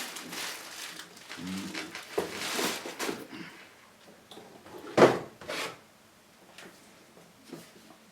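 Handling of cardboard and plastic unboxing packaging, rustling and bumping, with one sharp knock about five seconds in.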